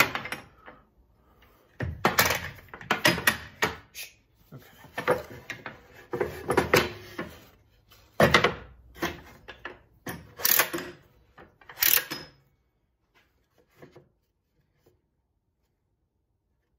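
Metal bar clamps clattering and knocking as they are laid on a table saw top, then a pine panel set down onto them. About a dozen clunks and rattles come in irregular clusters over roughly twelve seconds.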